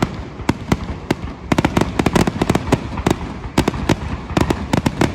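Fireworks display going off: a rapid run of sharp bangs and cracks from many shells at once, easing briefly about a second in, then packing tight again.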